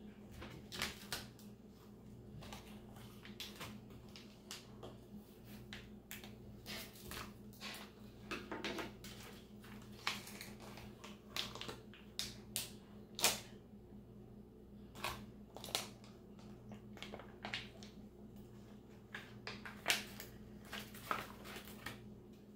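Crinkling and crackling of a plastic MRE food pouch being handled and torn open by hand, in irregular sharp bursts of rustle.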